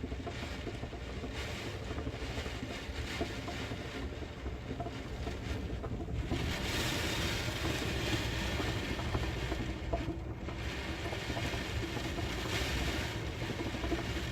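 Typhoon wind and heavy rain: a steady rushing that swells in gusts, strongest from about six seconds in.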